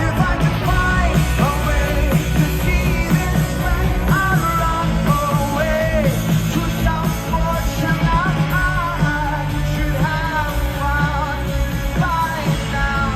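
Live rock band playing, with a voice singing a wavering melody over steady heavy bass and drums.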